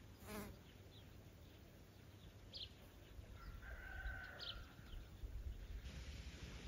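Countryside ambience: a rooster crows once in the middle, a few short bird chirps sound, and a low wind rumble on the microphone grows stronger near the end.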